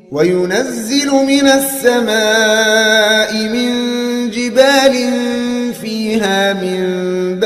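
A man's voice in melodic Quran recitation (murottal), singing long held, ornamented notes with a wavering vibrato in one drawn-out phrase. The phrase breaks off briefly about six seconds in, then goes on.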